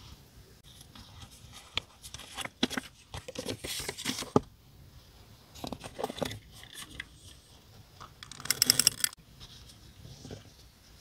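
Paper and sticker sheets being handled: scattered rustles, scrapes and short tearing or peeling sounds. A dense run of quick crackles about eight and a half seconds in is the loudest part.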